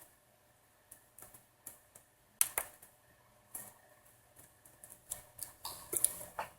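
Irregular small clicks and taps of tools and tiny parts being handled while a smartphone's earpiece speaker is taken out. The loudest click comes about two and a half seconds in, with a quick run of taps near the end.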